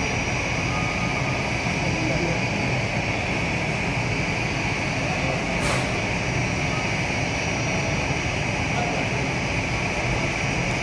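Airbus A320-family airliner's twin jet engines at idle as it taxis in: a steady high whine over a low rumble, with one brief tick about halfway through.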